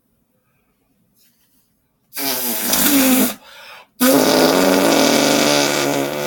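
Two fake fart noises made by a person: a short, loud one about two seconds in, then a longer, drawn-out one starting about four seconds in.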